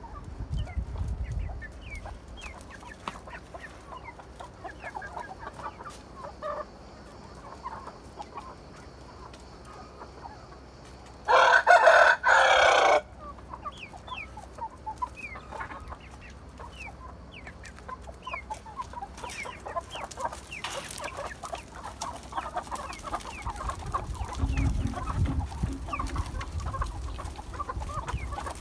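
A free-ranging flock of chickens: hens clucking on and off and chicks peeping, with one loud rooster crow in two parts about eleven seconds in.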